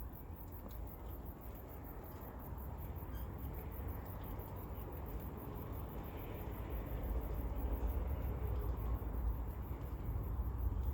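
Suburban outdoor ambience: insects chirping in a fast, even, high-pitched pulse over a steady low rumble, which grows a little louder about two-thirds of the way through.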